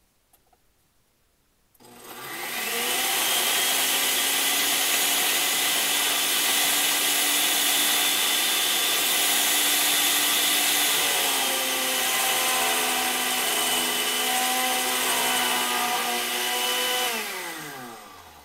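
Oster blender motor switched on about two seconds in, spinning up and running at full speed as it chops clumpy foam scenery material into fine ground foam, its whine shifting about halfway through. Near the end it is switched off and winds down with a falling whine.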